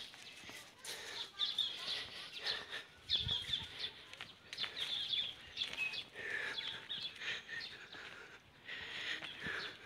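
Small birds chirping and singing in short repeated phrases, with a few faint clicks mixed in.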